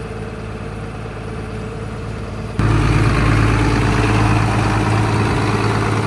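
Combine harvester's engine idling steadily, its main drive to the belts not engaged. About two and a half seconds in the sound jumps suddenly louder and fuller, then holds steady.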